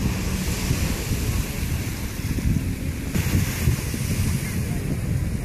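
Wind buffeting the microphone in a steady low rumble over the hiss of small waves at the shore.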